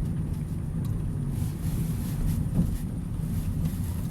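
Car interior noise while driving: a steady low rumble of engine and road noise heard inside the cabin.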